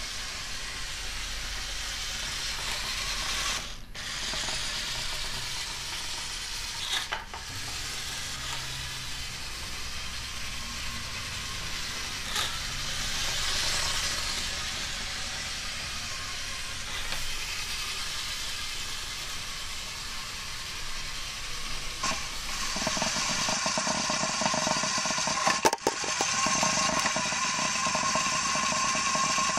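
Lego vehicle's small electric motor and plastic gears whirring and rattling as it drives across a hard floor. About three quarters of the way in it becomes louder and more of a steady whine, heard up close from the moving vehicle.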